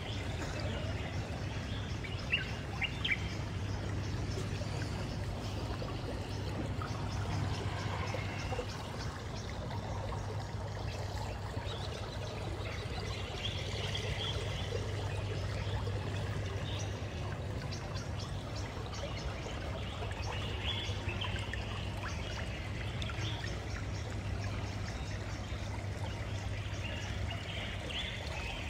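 Water trickling steadily, with birds chirping now and then over it and a steady low hum underneath.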